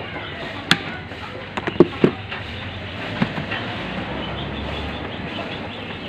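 A few sharp clicks and knocks, one about a second in and a quick cluster around two seconds in, over a steady background noise.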